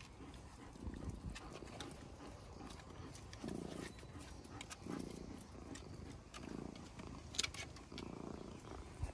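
Low rumbling that swells and fades about every second and a half, like a resting animal's breathing or purring, with faint scattered clicks.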